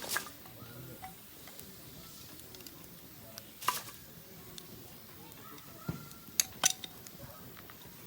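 Campfire wood burning and crackling: a low steady hiss with small ticks and four sharp pops, two of them close together near the end.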